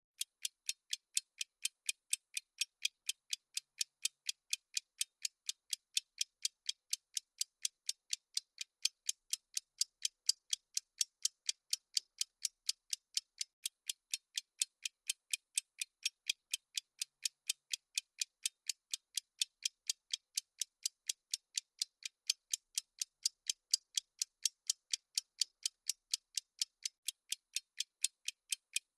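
Countdown timer's clock-ticking sound effect, an even, steady train of about three thin, high ticks a second with no low end.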